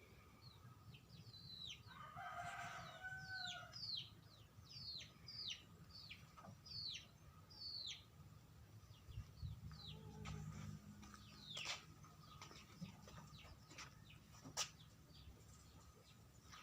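Baby chicks peeping: a run of short, high peeps, each falling in pitch, about one or two a second. About two seconds in comes a lower, drawn-out call.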